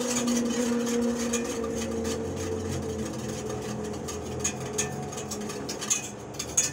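Wire whisk stirring water in a stainless steel saucepan, its metal tines scraping and clicking against the pot, with a few louder clicks near the end. A faint steady hum runs underneath.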